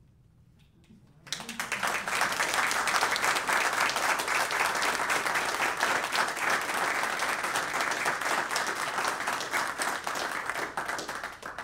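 Audience applauding: clapping that starts suddenly about a second in, runs for about ten seconds, and stops near the end.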